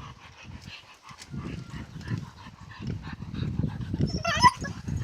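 Dogs moving about and breathing hard on their leads, with a short high whine from a dog about four seconds in.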